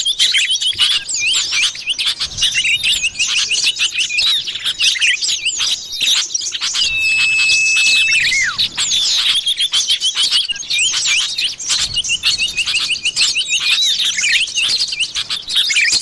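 Common iora (cipoh) calls played as a bird lure: dense, continuous high chirping and rapid chattering runs, with falling whistled notes and one long, steady whistle about halfway through.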